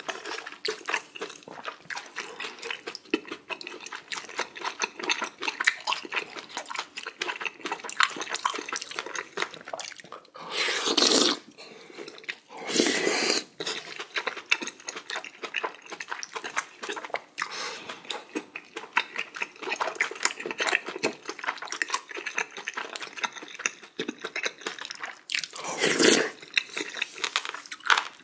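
Close-miked wet eating sounds: chewing and slurping of spicy beef small-intestine hot pot, full of small clicks and smacks. Three louder, longer rushing sounds stand out, about eleven, thirteen and twenty-six seconds in.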